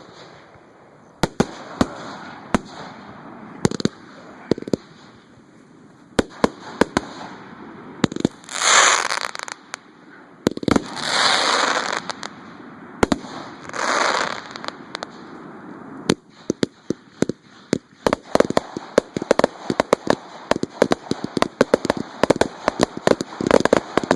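Fireworks going off at close range: scattered sharp bangs, three longer hissing bursts of a second or two around the middle, then a rapid barrage of many bangs in quick succession over the last several seconds.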